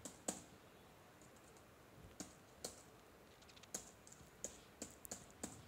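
Faint computer keyboard typing: about eight separate keystrokes, spaced irregularly, as a short line of code is typed.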